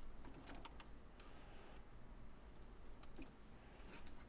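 Faint, scattered light clicks and rattles of plastic wiring-harness connectors and crimped wires being handled, over a low steady hum.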